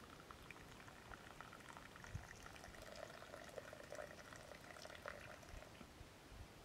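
Liquid poured in a thin, steady trickle from a small metal pot into a cup, faint.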